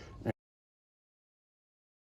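Faint room noise with a short tick that cuts off abruptly about a third of a second in, followed by dead digital silence.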